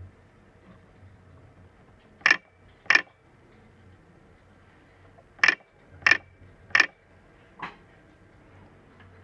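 Nd:YAG laser firing single pulses at the iris to make an iridotomy, each shot a sharp click. There are two clicks about two seconds in, three more evenly spaced about two-thirds of a second apart from about five and a half seconds in, and a fainter sixth shortly after, over a faint steady hum.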